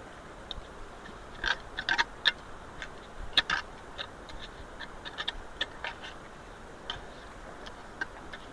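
Steady rush of floodwater through a culvert, with irregular sharp clicks and scraping clatters over it, thickest in the first half.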